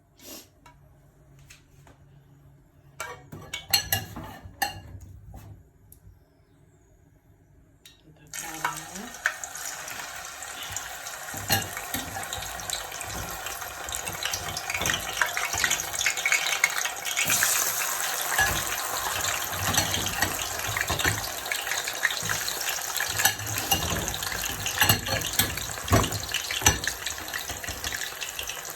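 A few knocks, then about eight seconds in a loud sizzle starts suddenly as raw cassava pieces go into hot oil. It keeps on with steady crackling, the pieces deep-frying.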